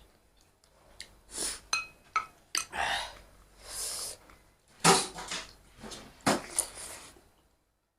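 Close-up eating sounds: a spoon clinking and scraping against a plate, with a few short ringing clinks about two seconds in, among a string of short noisy bursts from eating rice and soup.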